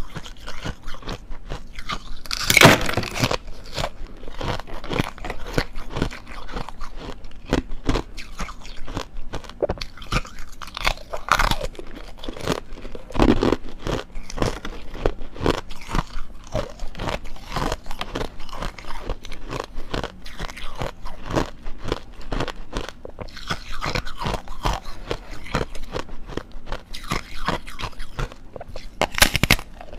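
Foam ice with a thin hard ice layer being bitten and chewed: dense, irregular crunching, with louder crunchy bites about two and a half seconds in, around eleven and thirteen seconds, and again just before the end.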